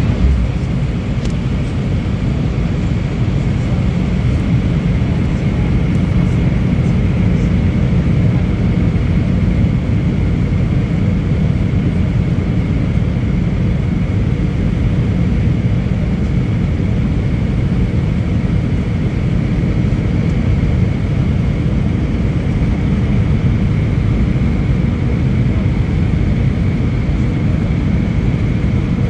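Steady cabin noise of an Airbus A320 on its landing approach: jet engine hum and airflow rush heard inside the cabin from a seat beside the engine, with a faint steady whine high above it.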